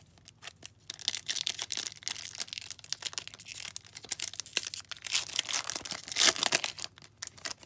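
Foil trading-card pack wrapper being torn open and crinkled by hand: a dense crackle of rustling foil, loudest about six seconds in.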